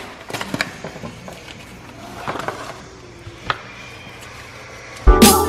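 Cardboard box and aluminium foil wrapper being handled and crinkled as a block of cheese is pulled out and unwrapped, with a few light clicks and rustles. Loud music with a beat starts suddenly near the end.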